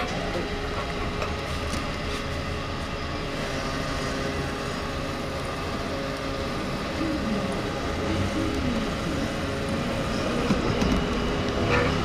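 Fuel dispenser running as it pumps petrol into a motorcycle's tank: a steady machine hum over a low rumble.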